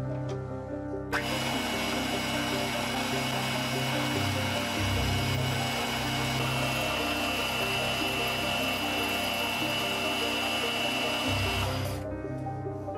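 Small lathe motor running steadily, spinning and turning down a brass rod clamped in its jaw chuck, with a steady high whine; it starts about a second in and stops shortly before the end, over background music.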